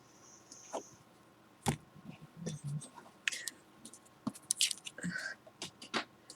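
Tarot cards being shuffled and handled: a scattered series of short, sharp clicks and flicks of card stock.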